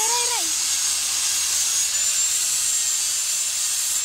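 Handheld electric angle grinder running with a steady high whine as it cuts into a steel rod, throwing sparks. About two seconds in, the whine rises in pitch as the disc comes off the metal and the grinder runs free.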